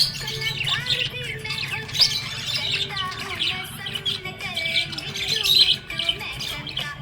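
Budgies chirping and warbling: a steady run of quick, gliding chirps with occasional squawks, with no pauses.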